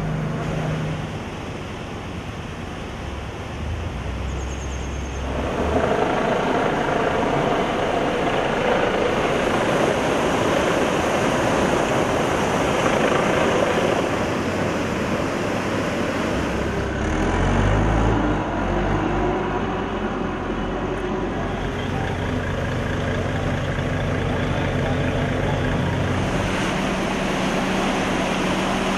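Rushing floodwater from a swollen stream, with the steady drone of an engine running underneath that shifts in pitch a few times.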